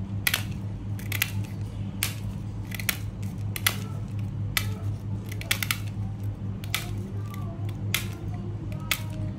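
Small scissors snipping the edge off a plastic spectacle lens: about a dozen sharp snips at irregular intervals, roughly one or two a second. A steady low hum runs underneath.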